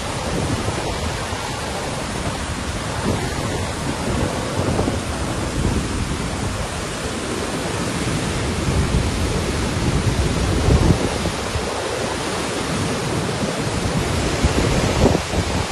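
Floodwater pouring through the open spillway gates of the Lower Manair Dam and churning into the river below: a loud, steady rushing noise with a deep rumble underneath.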